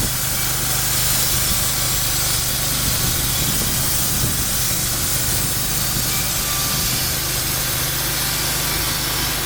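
Sawmill running steadily: its engine gives a constant low hum under an even high hiss as the blade cuts through cedar.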